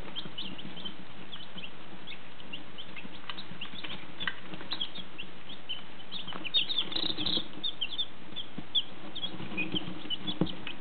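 A brood of one- and two-day-old chicks peeping continuously: many short, high peeps overlapping, growing busier around the middle of the stretch.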